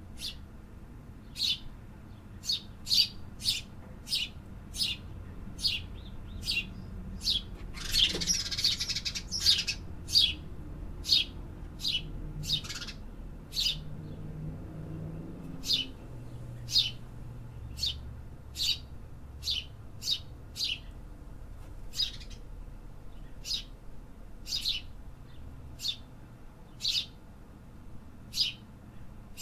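Small birds chirping: short, sharp chirps repeated about one or two a second, with a denser flurry of overlapping calls about eight seconds in.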